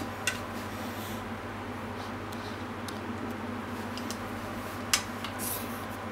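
Cookware clicking twice, sharply, while stir-fried vegetables are served into a bowl: once just after the start and louder about five seconds in. The second click is followed by a soft rustle of food sliding. A steady low hum runs underneath.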